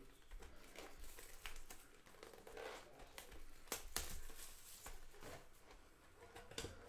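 Quiet crinkling and rustling of trading-card pack wrappers and cards being handled, with a few soft clicks.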